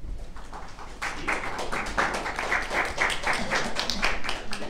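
Audience applauding, many hands clapping at once; the clapping swells about a second in and thins out near the end.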